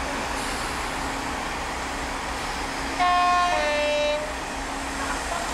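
Diesel locomotive sounding its two-tone horn as it approaches: a high note then a lower note, about a second in all, starting about three seconds in, over the steady noise of the oncoming train.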